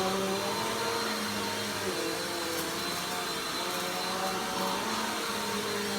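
Vacuum cleaner running steadily, its motor hum shifting up and down in pitch every second or so.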